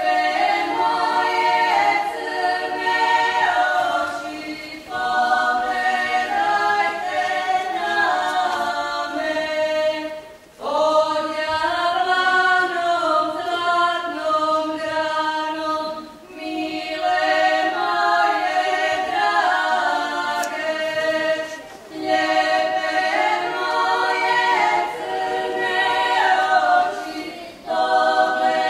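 Women's voices singing a Moslavina folk song a cappella in several-part harmony, in phrases broken by short breath pauses about every five to six seconds.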